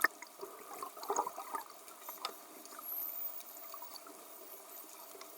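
Dolphins underwater: scattered sharp clicks, the loudest right at the start, and one very high whistle rising in pitch about three seconds in, over a steady water hiss.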